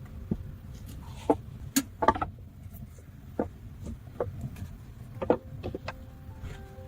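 Irregular sharp knocks and snaps, about a dozen, over a low steady rumble.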